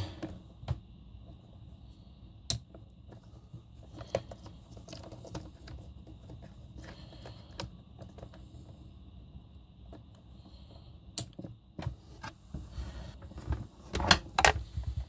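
Scattered small clicks and rustles of hands handling electrical wires and lever-type push-in wire connectors on a boat's wiring panel, with a quick run of louder clicks near the end.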